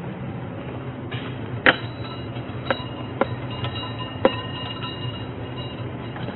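Doors and latch of a two-door storage cabinet being handled and swung open: four sharp clicks and knocks, each leaving a short metallic ring, over a steady low hum.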